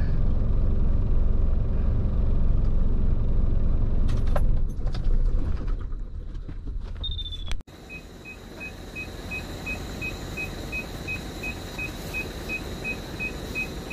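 Heavy truck's diesel engine running, a loud low rumble heard inside the cab, with a few clicks about four seconds in. After a sudden cut, a quieter scene with a steady high whine and a rapid regular electronic beeping, about two to three beeps a second.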